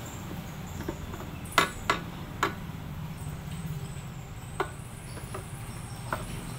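A handful of sharp metallic clicks and knocks, irregularly spaced, as metal parts of a scooter's CVT transmission case are handled and shifted by hand. The two loudest come close together about a second and a half in.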